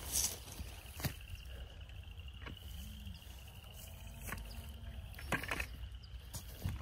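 A faint, high-pitched animal trill that holds a steady pitch and drifts slowly upward, with four soft clicks.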